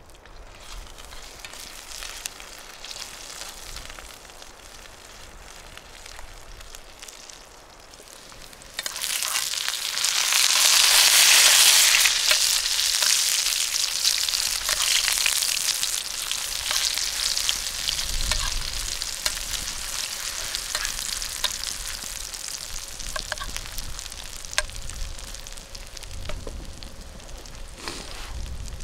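Chunks of meat frying in a pan over a small wood-burning stove. A sudden loud sizzle starts about nine seconds in, then settles into steady sizzling with small pops as the pieces are turned with a spatula.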